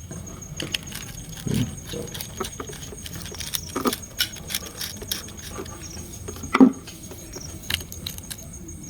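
Small metal clicks and clinks from handling hair-clipper blades, scattered irregularly, with one louder knock about two-thirds of the way through.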